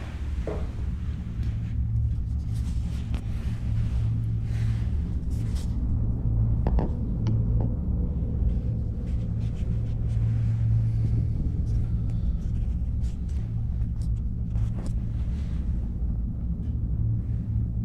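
Steady low rumble and drone inside a moving PEAK 2 PEAK tricable gondola cabin as it runs along its cables, with scattered light clicks and taps.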